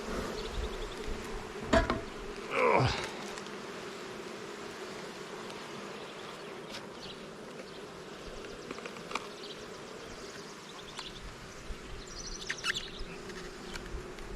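Honey bees buzzing steadily around an open hive, an agitated colony that is more active than usual. About two seconds in there is a sharp knock, then a louder buzz falling in pitch, with a few light clicks later.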